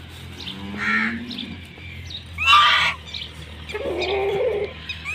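Birds calling: a few loud, harsh calls a couple of seconds apart, with a softer, lower call between them.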